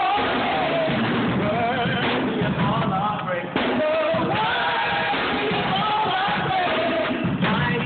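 Voices singing a worship song together in rehearsal, sustained sung phrases with wavering pitch, with a brief break about three and a half seconds in.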